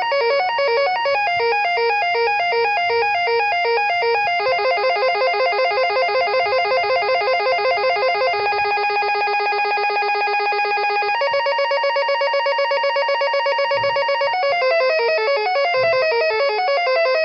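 Electronic telephone ringtone: a run of short synthesized melodies and fast trills, the tune changing every three or four seconds.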